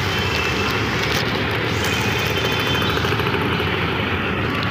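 Auto-rickshaw engine running steadily, heard from inside the open cab, under the noise of rain and traffic on a wet road.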